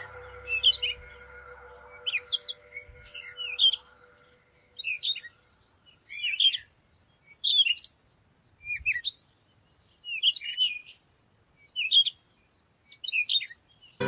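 A bird calling a short, high chirping phrase about ten times, roughly once every second and a half. Soft background music fades out over the first few seconds.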